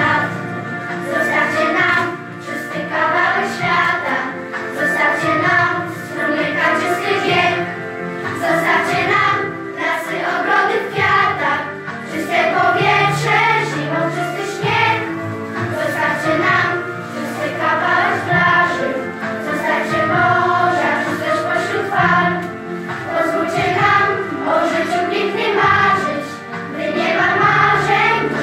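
A song: a group of voices singing together over backing music.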